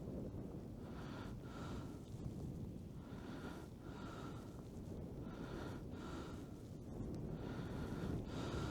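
A person breathing close to the microphone, slow paired in-and-out breaths about every two seconds, over a low wind rumble.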